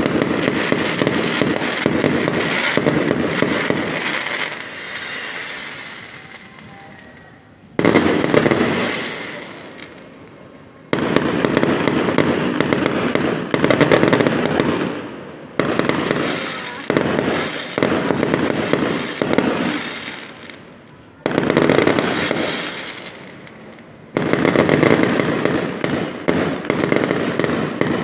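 Aerial fireworks going off in a rapid string of volleys, about ten in all. Each starts with a sudden loud burst and trails off into a few seconds of dense crackling before the next one hits.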